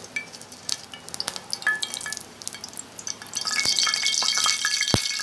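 Cooking oil heating in a frying pan, crackling with scattered pops, then sizzling denser and louder from about three and a half seconds in. A single low knock near the end.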